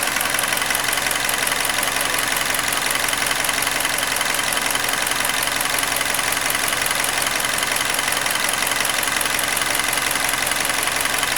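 Hyundai Elantra's freshly rebuilt G4NB 1.8-litre four-cylinder engine idling steadily and evenly, running well after a rebuild for scored cylinders.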